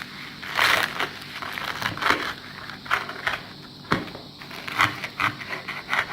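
Knife cutting through crisp, freshly fried fesleli dough, a sugar-topped fried flatbread, with a run of irregular crunches and crackles as the crust breaks.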